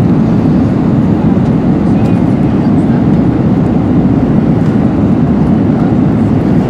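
Steady, deep roar inside the cabin of an Airbus A321-211 on final approach: airflow and its CFM56 engines, heard from a window seat.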